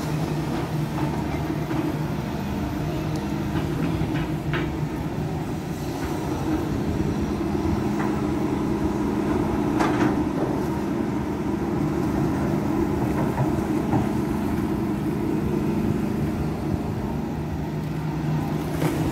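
Volvo long-reach excavator's diesel engine running steadily while it works its arm, with a couple of short knocks about four and ten seconds in.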